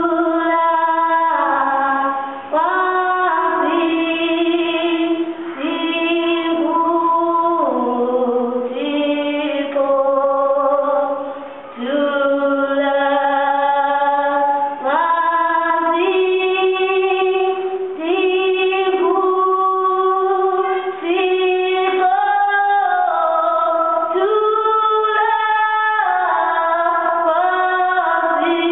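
Women's voices singing a slow song with long held notes and no instruments or beat.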